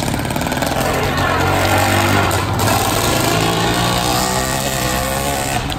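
80cc two-stroke bicycle engine kit running loud as the motorized bike rides by, its pitch shifting a little with the throttle.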